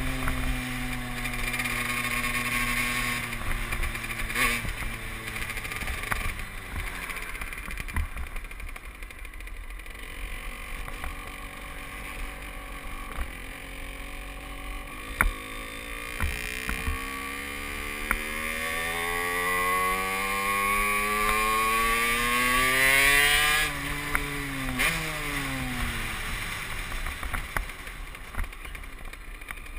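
Derbi Senda moped's engine heard from the rider's seat on the move: it runs at a steady note, drops back quieter for several seconds, then climbs steadily in pitch for about seven seconds before the revs fall off sharply and sink again near the end. A couple of sharp knocks sound in the first half.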